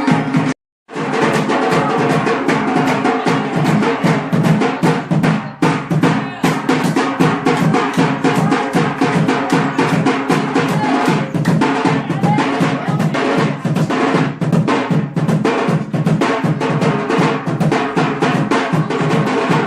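Traditional dance drum beaten in a fast, dense rhythm. The sound cuts out for a moment just under a second in.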